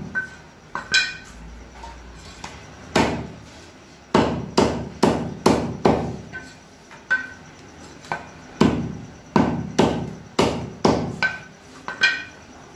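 A heavy butcher's knife chopping chicken on a wooden stump chopping block: about twenty sharp chops, some in quick runs of four or five strokes. A few chops are followed by a short ringing tone from the blade.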